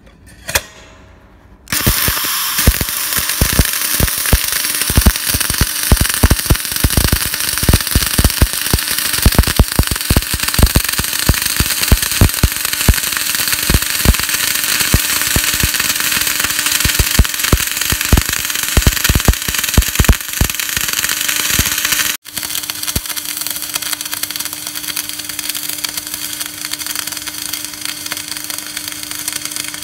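MIG/MAG welding arc running a fillet weld on steel plate with 1.2 mm wire at about 250–270 amps. It strikes a little under two seconds in and crackles densely and steadily. After a brief break about two-thirds of the way through, it carries on a little quieter over a steady low hum.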